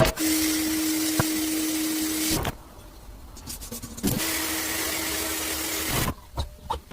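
A small electric power tool runs twice, each time for about two seconds, with a steady motor hum under a loud hiss, and starts and stops abruptly.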